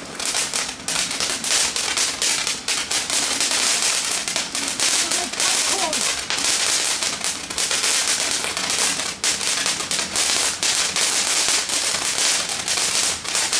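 Consumer fireworks crackling: a dense, continuous string of rapid small pops, like popcorn.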